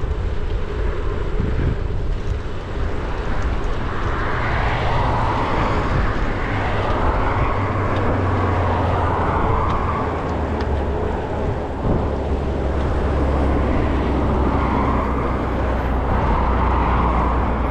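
Wind rumbling over an action camera's microphone as a bicycle rides along a highway shoulder, with highway traffic swelling and fading as vehicles pass, louder about four seconds in and again near the end.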